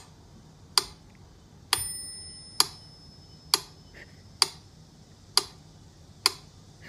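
Mechanical metronome ticking steadily, a little faster than one tick a second, with its bell ringing once about two seconds in and fading out over the next two seconds.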